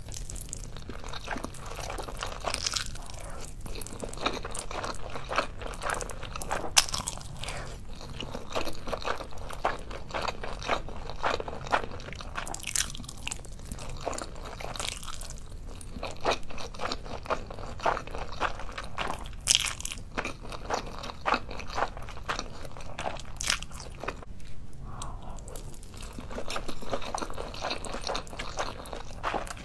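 Eating saucy instant noodles: slurping strands into the mouth and chewing, with many irregular wet, smacking clicks.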